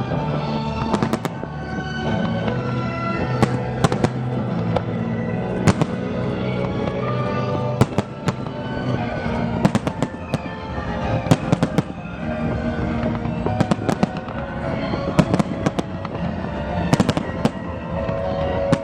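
Fireworks bursting in a series of sharp, irregularly spaced bangs, over music playing steadily underneath.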